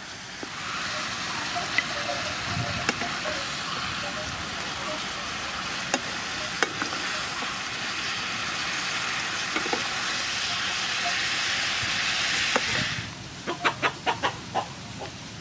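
Sea snail and vegetable stir-fry sizzling in a frying pan as a wooden spatula stirs it, with a few sharp knocks of the spatula against the pan. The sizzle cuts off a couple of seconds before the end, and a quick run of sharp clicks follows.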